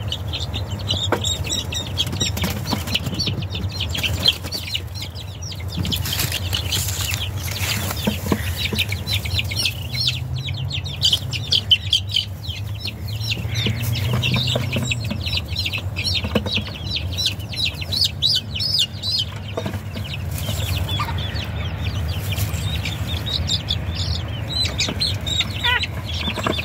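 Bantam chicks peeping, a long run of short, high-pitched peeps repeated many times over a steady low hum, with a few scattered knocks.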